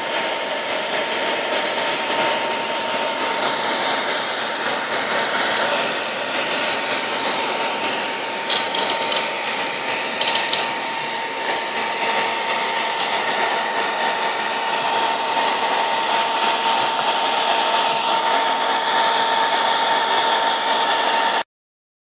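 Hand-held hair dryer blowing steadily, with a fixed whine from its motor, heating decal glue so the stickers can be peeled. It cuts off abruptly near the end.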